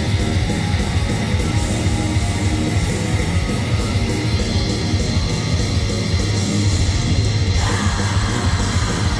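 Heavy metal band playing live and loud, led by distorted electric guitar over a fast, steady beat. A brighter layer comes in about two seconds before the end.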